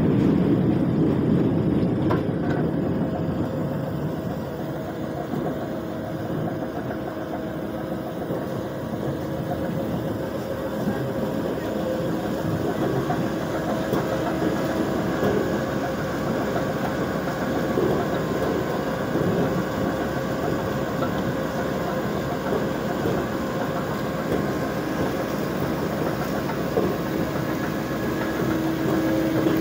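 ROPA Maus 4 sugar-beet cleaner-loader working: its engine and its pickup rollers and conveyors run steadily with a constant hum as it loads beets from the clamp.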